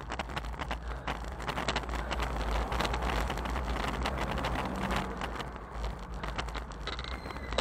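Wind buffeting an action camera's microphone on a moving bicycle: a steady low rumble with crackles, mixed with tyre and road noise as cars drive past close by.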